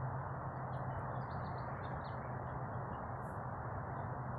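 Small birds chirping in short repeated notes over a steady low hum and background hiss.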